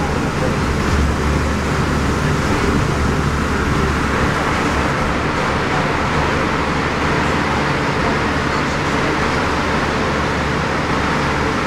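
Vintage London double-decker bus under way, heard from inside on the upper deck: its diesel engine running steadily under a constant hiss of tyres on a wet road.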